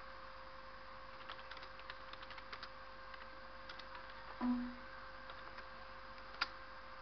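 Computer keyboard keystrokes: a run of light, quick clicks, then a few more, and one louder single click near the end, over a steady electrical hum. A brief low tone sounds about midway.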